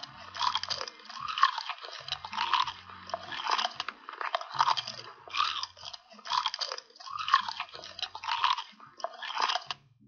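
Crunchy chewing, with a crisp bite-and-crunch about once a second.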